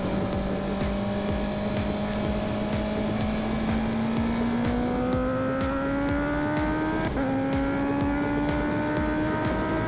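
Honda CB650R's inline-four with a full Akrapovič exhaust pulling hard under acceleration. Its pitch climbs steadily, drops at an upshift about seven seconds in, then climbs again, over wind noise.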